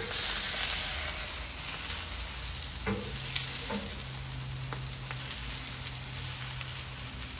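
Italian sausages sizzling on a hot Blackstone flat-top griddle, a steady frying hiss, with a few short clicks a few seconds in.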